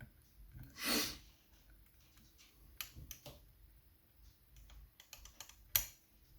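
Faint, irregular small clicks and ticks of a lever-lock pick and tension tool working inside a Chubb 3G107 seven-lever lock as the levers are lifted, with one sharper click near the end. About a second in there is a short breathy hiss.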